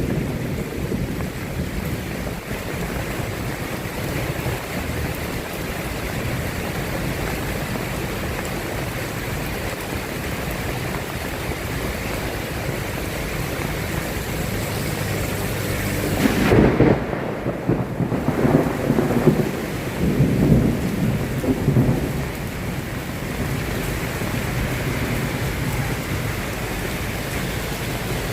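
Steady rain falling, with a rolling rumble of thunder about sixteen seconds in that swells several times over some six seconds before fading back into the rain.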